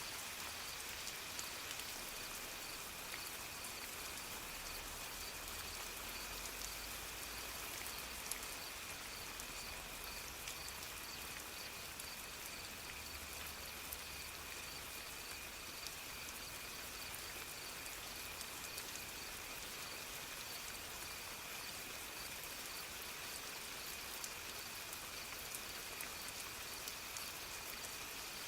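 Soft rain falling steadily, with scattered drops ticking close by.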